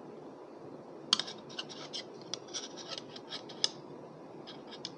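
Metal chopsticks clicking together and scraping against a ceramic plate: a run of sharp light clicks starting about a second in, with a few more near the end.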